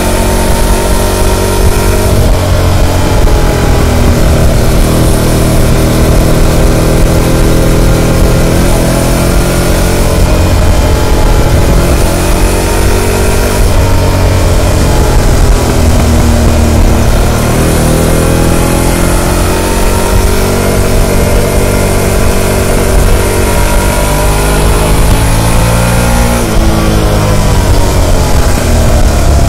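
Harley-Davidson Pan America 1250 Special's liquid-cooled Revolution Max V-twin running through its stock muffler while under way. Its pitch shifts about two seconds in, climbs around halfway, then dips and climbs again near the end as the throttle opens and closes.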